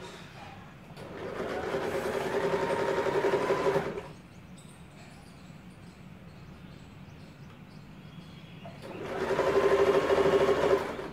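Sewing machine stitching in two runs of about three and two seconds with a pause between, each run speeding up as it starts.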